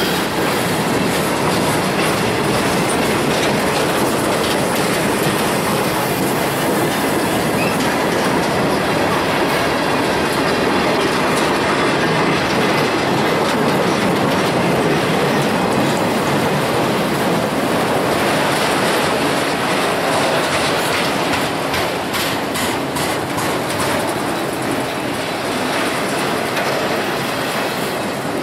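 Freight train of boxcars and autorack cars rolling past close by: a steady, loud rumble of steel wheels on the rails, with clacks of wheels over rail joints coming through more plainly in the second half.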